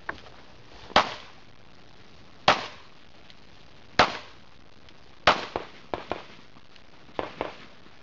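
Pistol shots fired in a practical shooting stage: four loud shots about a second and a half apart, then a quicker string of fainter shots in the second half.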